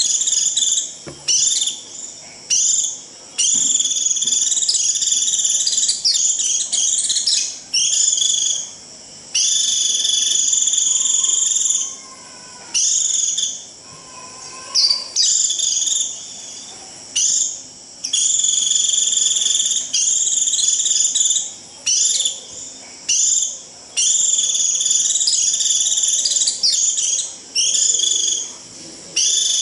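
White-eye (vành khuyên) giving its shrill 'rít' flock call: long, buzzy, high-pitched notes, one after another with short breaks. This is the call used to summon a flock.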